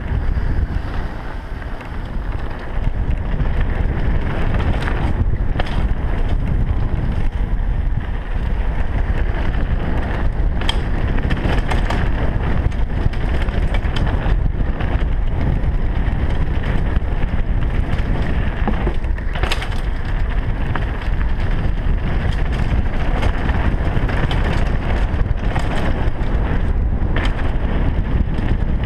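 Wind buffeting a helmet-mounted camera's microphone as a downhill mountain bike runs fast over a dirt and gravel trail, with tyre rumble underneath. A few sharp knocks come through as the bike hits bumps.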